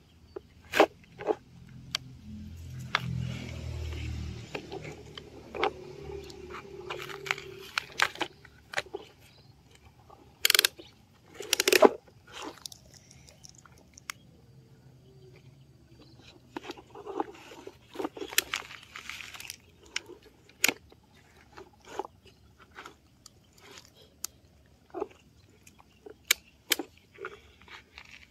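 A plastic toy excavator's bucket scraping and scooping gravelly soil and tipping it into a plastic toy dump truck's bed. Dirt and grit crunch and pour, with many sharp plastic clicks and knocks, the loudest a couple of knocks a little before halfway.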